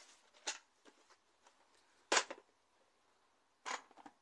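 Three short rustles and knocks of things being handled on a tabletop, the loudest about two seconds in.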